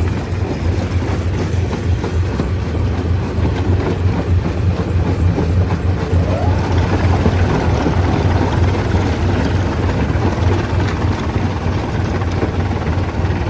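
Heavy engine of stone-crushing machinery running steadily, with a strong low drone.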